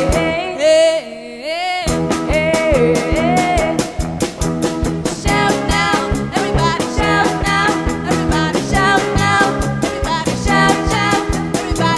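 Live band playing an upbeat rock-and-roll number: female voices singing into microphones over electric guitar and drum kit. The band drops out for the first couple of seconds, leaving a held sung line, then comes back in with a steady drum beat.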